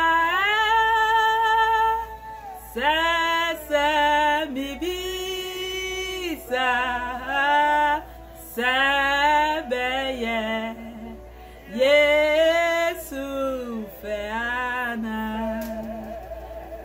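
A woman singing solo, in long held phrases with short breaths between them.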